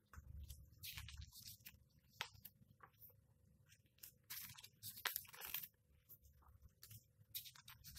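Quiet rustling and brushing of paper as the glossy pages of a large hardcover comic book are handled and turned, in several short bursts, with a crisp snap of paper about five seconds in.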